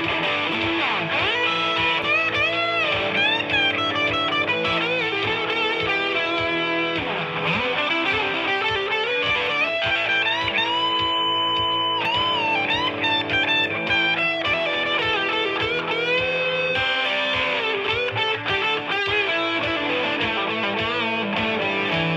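Les Paul electric guitar playing a hard rock lead, full of string bends, with a long held note about halfway through.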